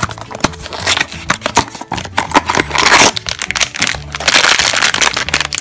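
A blind box being opened by hand: cardboard flaps clicking, then the foil bag from inside crinkling loudly as it is crumpled, in two long bursts about three seconds in and again near the end.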